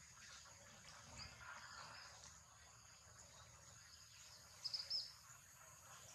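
Faint outdoor ambience with a steady high insect buzz, broken about four and a half seconds in by a quick run of four or so high chirps.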